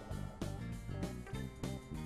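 Online slot game background music: a run of short, quick notes in a steady rhythm.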